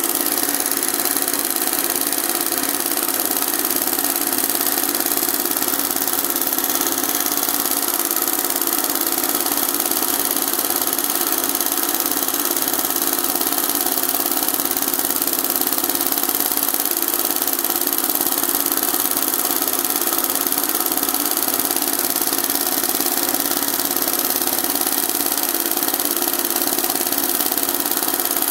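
Embroidery machine running steadily as it stitches gold thread onto fabric, a continuous even mechanical whirr.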